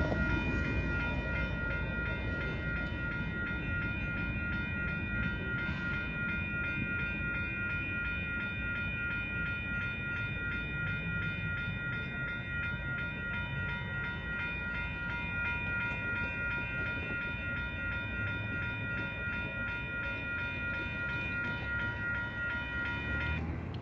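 Railroad grade-crossing warning bells ringing in several overlapping pitches, with a fast repeating strike, over the fading rumble of a departing freight train. The bells stop abruptly near the end as the crossing clears.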